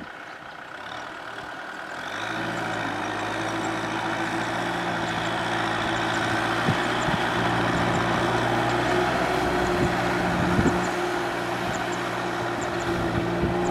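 Kubota M6040SU tractor's four-cylinder diesel engine running steadily under load as it pulls a cultivator through paddy mud. The engine comes up from faint to clearly heard about two seconds in, then holds an even drone.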